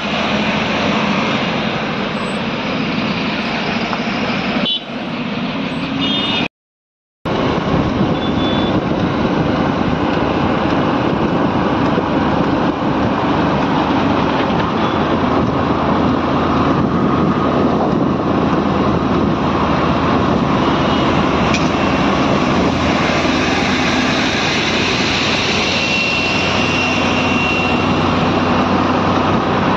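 Steady engine and tyre noise of highway traffic, heard from a moving vehicle, with a few short high beeps in the first six seconds. The sound cuts out completely for under a second about six and a half seconds in, then the same steady running noise carries on.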